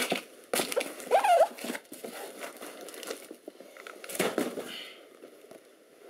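Handling noise: rustling, crinkling and knocks as things are moved about, with a short squeak about a second in.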